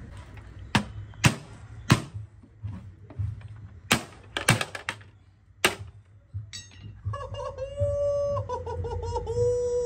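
Sharp cracks and knocks of a plastic ATM cash cassette being forced open by hand, about seven separate hits in the first six seconds. In the last few seconds a long, high, held voice-like tone that steps down slightly.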